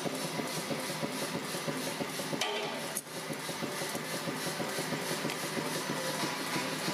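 A power hammer running idle between blows: a steady mechanical running with faint, evenly spaced ticks.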